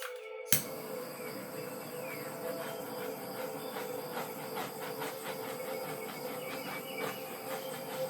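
Handheld butane torch clicking alight, then a steady hissing flame played over wet acrylic pour paint to bring up cells and pop bubbles.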